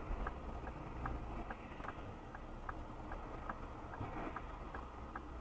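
A car's turn-signal indicator ticking evenly, about two and a half ticks a second, over the low rumble of the engine and road heard inside the car.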